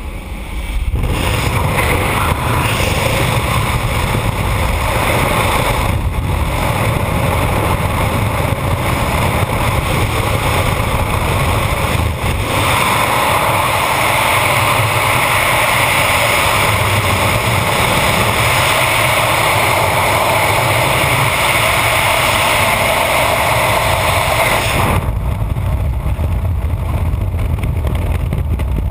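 Loud rushing wind over the camera microphone in skydiving freefall. It starts abruptly about a second in, at the exit from the aircraft door. Near the end the hiss drops away, leaving a low rumble.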